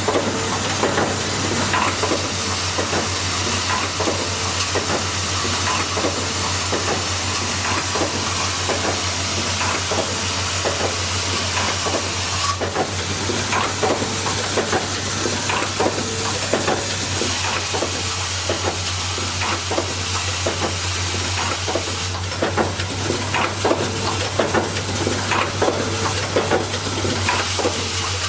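Automatic welding machine for MCB bimetal support frames running: a steady hiss and a low hum, broken by many quick clicks and ticks, several a second, from the machine's working strokes.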